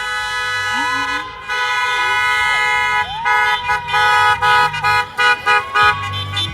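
Several car horns honking at once as cars drive past: long held blasts at first, then a quick run of short toots over the last few seconds.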